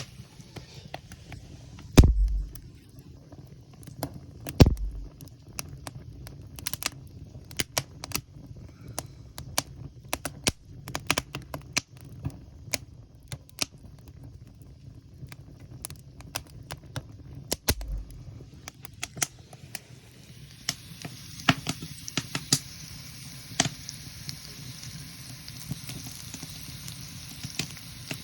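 Wood cooking fire crackling and popping with irregular sharp snaps, and three heavier knocks about 2, 5 and 18 seconds in. From about two-thirds of the way through, a steady sizzling hiss of food frying over the fire comes up under the crackle.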